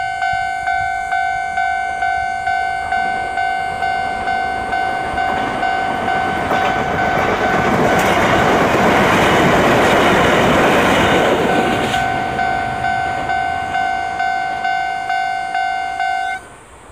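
Japanese level-crossing alarm bell ringing, about two to three dings a second, while a Chichibu Railway train passes over the crossing. The train's rumble builds to its loudest a few seconds after it begins and dies away. The bell stops suddenly near the end, as the crossing clears.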